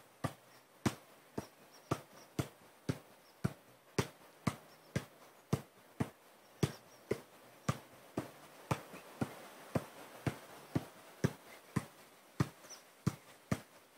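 Adidas Tango 12 football being juggled: a steady rhythm of sharp ball touches off the foot and knee, about two a second.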